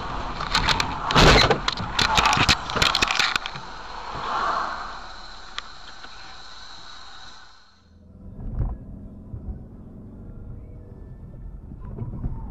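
Dashcam audio from a car driving in traffic. A rapid flurry of sharp knocks and cracks fills the first three seconds, loudest about a second in, then gives way to steady road noise. The sound changes abruptly near eight seconds in, with one dull thump shortly after.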